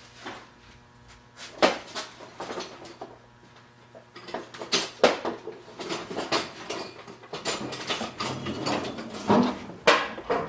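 A chair being moved into place off camera: an irregular series of knocks, clunks and scrapes, with the sharpest knocks about a second and a half in, around five seconds in and near the end.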